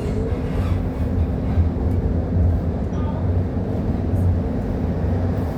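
Train running, a steady low rumble with a constant hum.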